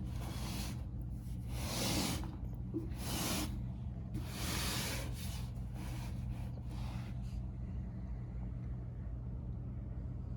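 Several short bursts of hiss over a steady low electrical hum; the bursts stop about seven and a half seconds in, leaving only the hum.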